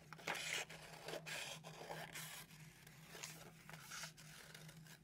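Scissors cutting through a sheet of gray paper: a run of short rasping snips.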